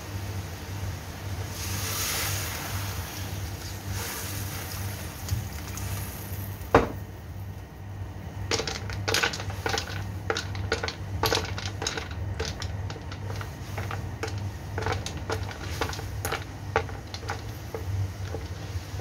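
Sea snail shells clicking and clattering against each other and the wok as they are stirred with a wooden spatula in simmering sauce, over a steady low hum. There is a short hiss about two seconds in and a single sharp knock about seven seconds in, the loudest sound, before a run of many quick clicks.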